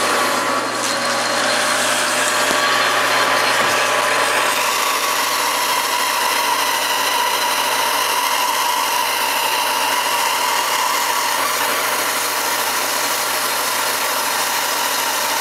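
Lathe running, spinning a polyurethane skateboard wheel while a coarse hand rasp is pressed against it, shaving the wheel down to remove flat spots and coning: a steady scraping hiss over a low motor hum.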